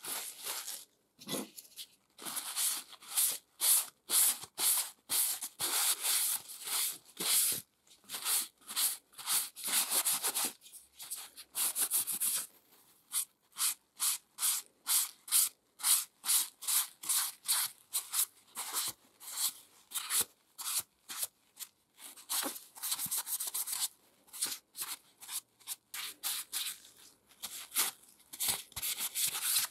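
Wad of paper towel rubbed in short, quick strokes over a wooden saw handle, wiping on wood dye: a rustling swish with each stroke, a few strokes a second, with a couple of brief pauses.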